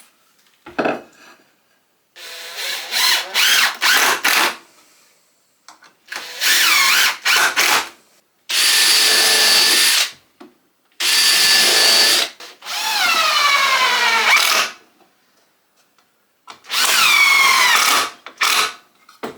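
Power drill running in about six bursts of one to two seconds, boring pilot-and-countersink holes into softwood frame pieces for screws; in several bursts the motor pitch sweeps down or up as the trigger is eased.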